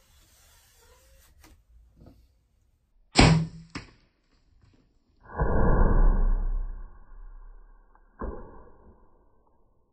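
A Mathews compound bow being shot about three seconds in: a loud, sharp crack as the string is released, then a weaker knock half a second later. After it comes a rushing noise of about two seconds, and another sharp knock near the end.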